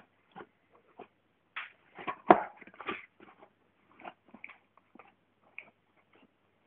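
Golden retriever licking at a carton of chicken soup: irregular wet licks and smacks, with a louder flurry about two seconds in.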